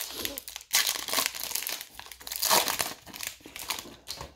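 Foil wrapper of a 2020 Topps Series One baseball card pack crinkling and tearing as it is pulled open by hand. It comes in repeated crackly bursts that fade out near the end.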